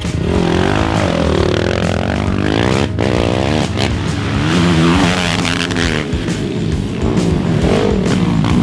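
Racing ATV engines revving hard, several overlapping, their pitch sweeping up and down as they accelerate and shift, over a background music track.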